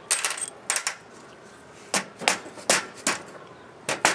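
Sharp metallic clinks and knocks of the pump's loose steel head bolts and brass head being handled on a steel workbench. There is a quick cluster at the start, four knocks a couple of seconds in, and two more near the end.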